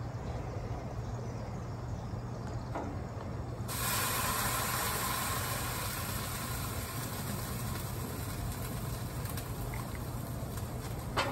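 Shellfish sizzling on a hot grill: a steady hiss that starts suddenly about four seconds in and keeps on, over a low steady hum, with a sharp click near the end.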